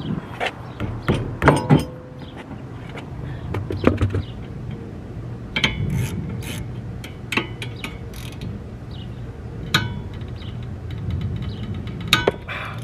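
Scattered sharp metal clicks and clinks of hand tools and brake parts as a car's rear wheel and brake are worked on.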